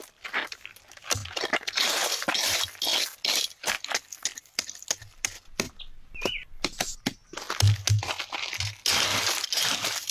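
Dry sticks and brush being handled and broken: many sharp snaps and cracks with a crunching rustle, densest about two seconds in and again near the end. A short high chirp about six seconds in.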